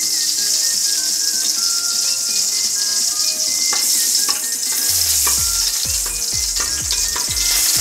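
Ghee sizzling as it melts in a hot aluminium kadai, with a steady hiss, and a metal ladle stirring through it from about halfway in.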